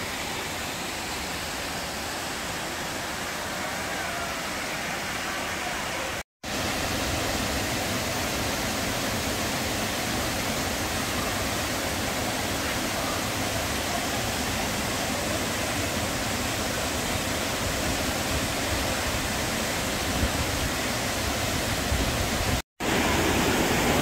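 Waterfall and rapids: water pouring over rock ledges in a steady rush. The sound is broken twice by a split-second gap and is a little louder after the first.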